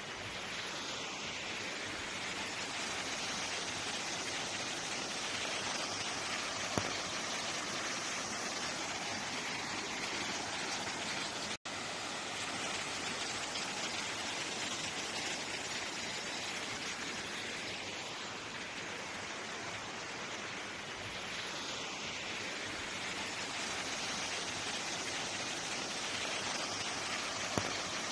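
Steady rushing of muddy water running over landslide debris, an even continuous rush that cuts out for an instant about eleven seconds in.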